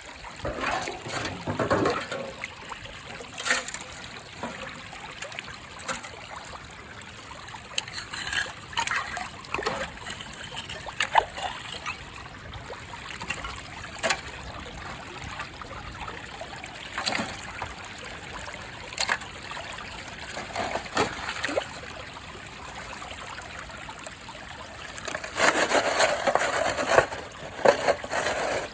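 Creek water trickling steadily, with scattered sharp knocks and clicks throughout and a louder, noisier stretch of about two seconds near the end.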